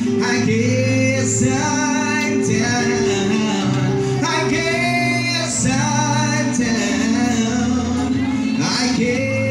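Live band playing a song with a singer, over held bass notes.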